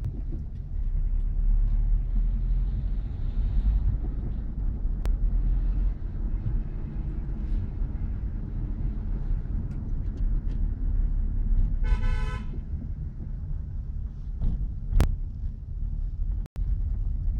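Steady low rumble of a vehicle's engine and road noise heard from inside the cabin while descending a steep ghat road. A vehicle horn sounds once, briefly, about twelve seconds in.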